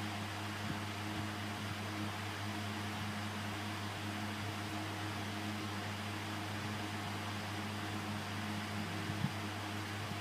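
Steady low electrical hum over a constant hiss, with a faint click about nine seconds in.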